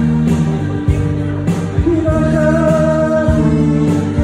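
Live band music with a steady drum beat and singing; a long, slightly wavering note is held through the second half.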